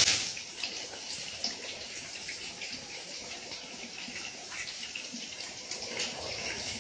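Heavy rain pouring down steadily, a dense hiss dotted with the small splashes of drops.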